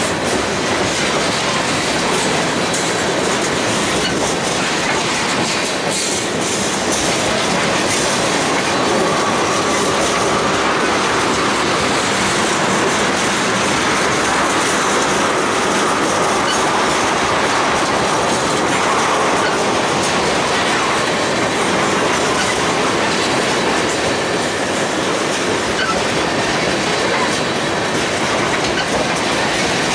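Freight train of tank cars and covered hoppers rolling past, steel wheels rumbling steadily and clicking over rail joints, with a faint wheel squeal through the middle.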